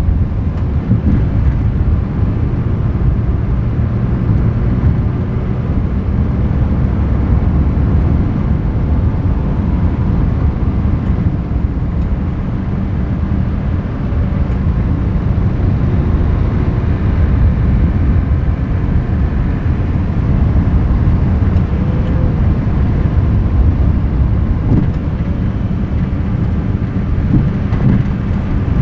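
Steady low road noise of a vehicle driving along an empty road, picked up by a microphone outside the vehicle.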